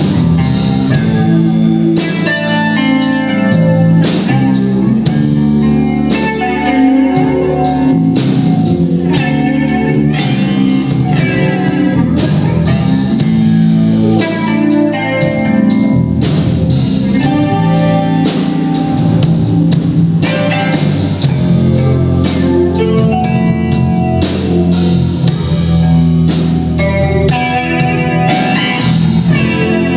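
A blues band playing live: guitar over bass and a drum kit keeping a steady beat.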